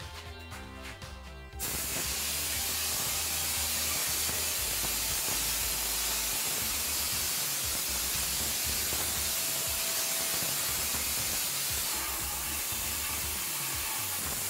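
Air-driven hopper spray gun spraying a fine plaster mortar onto a wall: a loud, steady hiss of compressed air and spray that starts about a second and a half in and stops just at the end.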